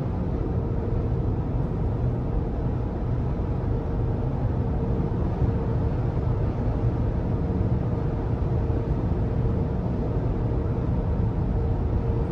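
Interior cabin noise of a Rivian R1T electric pickup cruising at 73 mph: a steady rush of wind and road noise, with a faint steady electric-motor whine above it.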